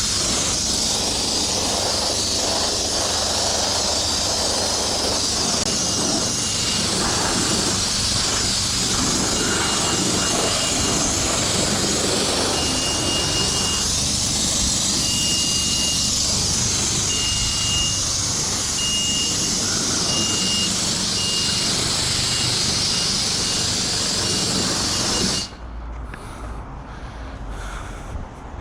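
Steady rushing hiss of wind and tyre noise while riding a mountain bike. From about six seconds in, a thin high-pitched tone sounds on and off in short and long dashes. Both cut off suddenly near the end, leaving a quieter background.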